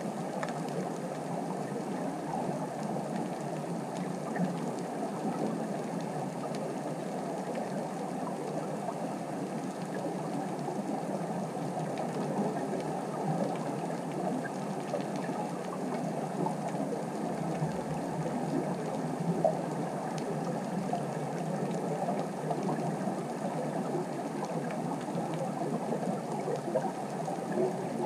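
Underwater ambient sound picked up by a camera in its housing on the seabed: a steady, even rush of noise with faint scattered ticks.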